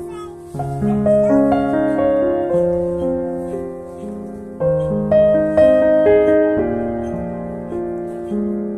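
Background piano music: a slow melody of notes and chords, each struck and left to ring as it fades.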